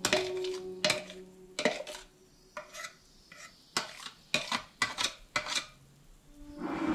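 Kitchen utensils clinking and knocking against cookware: about a dozen irregular sharp clicks, with background music fading out in the first couple of seconds.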